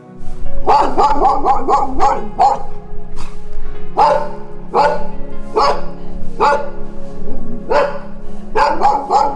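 Dog barking repeatedly, with quick runs of several barks about a second in and near the end and single barks in between, over steady background music.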